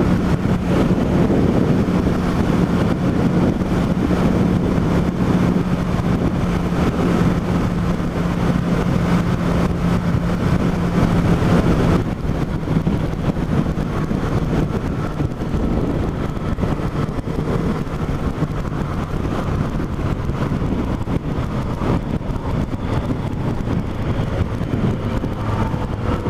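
Yamaha FZ8 motorcycle's inline-four engine running at a steady pitch while riding, with wind rushing over the microphone. About halfway through, the wind noise drops and the engine's steady tone fades soon after, as the bike slows.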